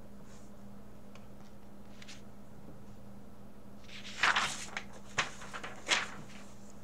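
A sheet of paper picked up and pulled away, rustling and crackling for about two seconds starting about four seconds in, loudest at the start, with a couple of sharper crinkles near the end. A faint steady hum runs underneath.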